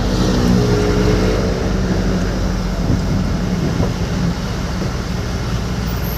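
Motor vehicle engine and road noise, running steadily at a low, even drone.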